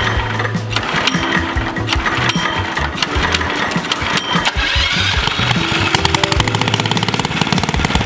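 Background music with a steady beat over a small minibike engine being pull-started by its recoil cord and running at a rapid, even firing rhythm.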